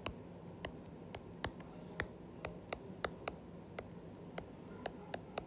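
Stylus tip tapping and clicking on a tablet's glass screen during handwriting: sharp, irregular clicks, two or three a second.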